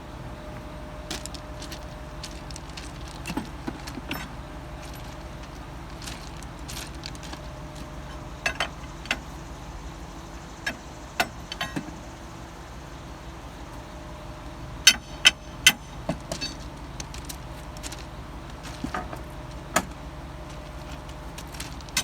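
A steady low engine rumble, with irregular sharp metallic clicks and clanks over it, the loudest three in quick succession about two-thirds of the way through.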